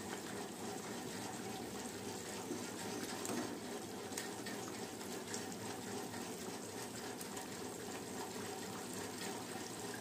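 Fish curry simmering in a pot on a gas stove: a steady, watery bubbling hiss, with a few faint clinks of a steel ladle.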